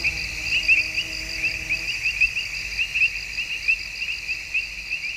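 Crickets chirping in a steady rhythm, about four high chirps a second.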